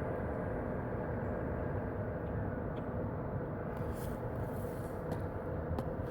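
A vehicle engine running steadily, a constant rumble, with a few faint ticks in the second half.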